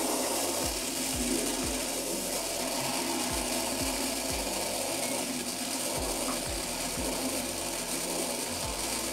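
SmartMi smart bidet toilet seat running its wash: a steady hiss of water spraying from the nozzle, with the seat's pump pulsing low about twice a second.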